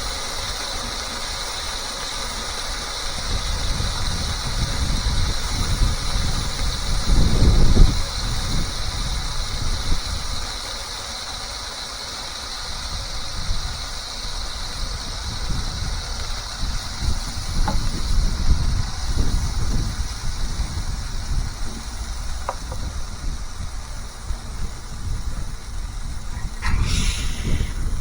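Burger sizzling on a hot flat-top griddle: a steady hiss over a low, uneven rumble that swells about a third of the way in, with a short sharper sound near the end.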